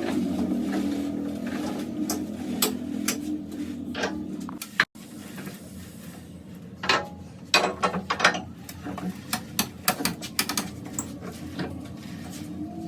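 Workshop sounds from tyre-repair work: a steady machine hum for about the first five seconds, which cuts off suddenly, then scattered clicks and knocks of tools being handled.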